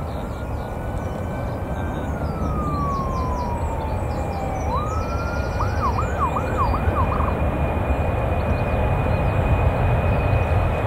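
Emergency vehicle siren: a slow wail rising then falling in pitch, followed by about five quick yelps, over a steady rumble of jet aircraft noise that grows louder toward the end.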